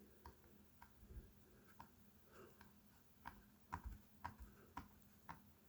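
Faint, irregular light clicks and taps against near silence, coming about twice a second in the second half.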